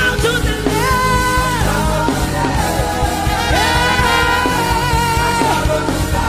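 Live gospel band playing, with keyboards, guitar, bass and drums, and a trumpet holding long high notes over it: a short held note about a second in, then a longer one held for about two seconds.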